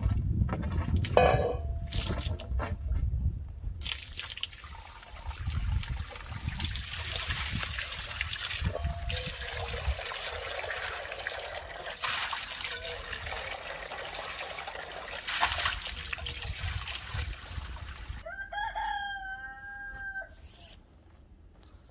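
Water running from a hose and splashing into an enamel bowl and onto a stone trough as the bowl is rinsed. Near the end a rooster crows once.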